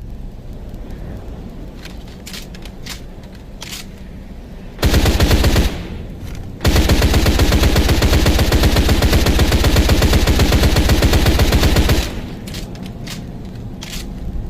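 Thompson submachine gun with a drum magazine firing on full auto, as a sound effect: a short burst of about a second, a brief pause, then a long sustained burst of about five seconds. A low rumble and a few sharp clicks come before and after the firing.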